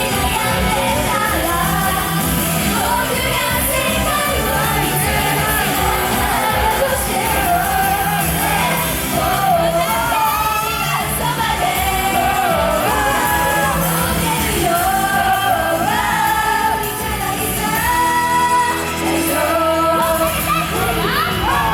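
Idol group singing a pop song live over a backing track with a steady beat, in a large hall; the bass drops out for a moment near the end.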